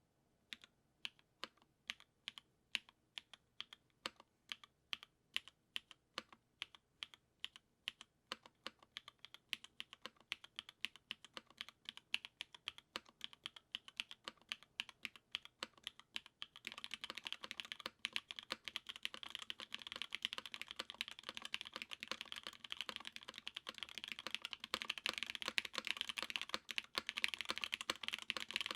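Custom Noxary 380 mechanical keyboard with Strawberry Milk linear switches, an aluminium plate and GMK keycaps being typed on. Single keystrokes about two to three a second at first, then fast, continuous typing from about halfway through.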